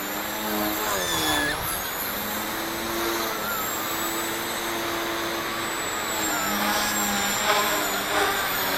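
Small electric RC helicopter with a 3D-printed main gear in flight: the buzz of its rotor and the high whine of its motor and gears over a steady rushing noise. The pitch swoops about a second in and shifts again near the end as it manoeuvres.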